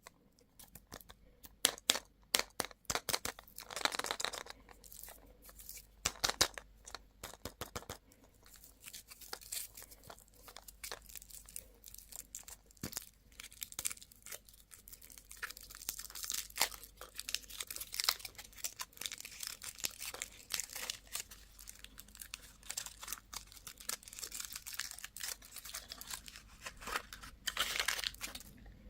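Plastic candy wrapping crinkling and being torn open, with many small crackles and clicks and a few longer rustling stretches.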